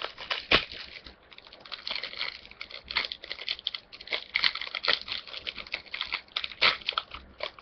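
Foil trading-card booster pack wrapper crinkling and being torn open by hand, with irregular sharp crackles and ticks as the pack and its cards are handled.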